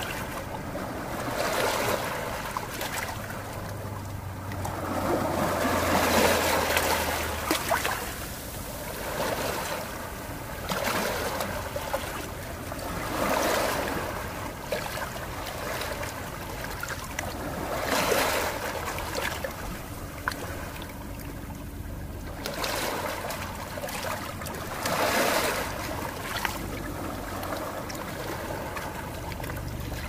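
Ocean waves washing in, the surf swelling and falling back every few seconds over a steady hiss of water.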